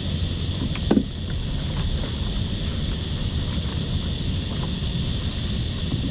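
Steady wind and water rumble on a kayak-mounted camera's microphone, with a few small clicks and knocks of hands handling a crab and landing net; the loudest is a brief knock about a second in.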